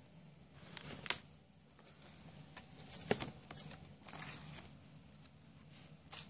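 Card pages of a homemade pop-up book being turned and handled: scattered papery rustles and flaps, the sharpest about a second in and again about three seconds in.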